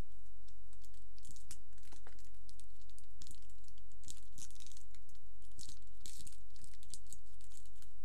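Toxic Waste sour candy wrappers being crinkled and torn open by hand: an irregular run of sharp crackles and rustles, busiest in the second half.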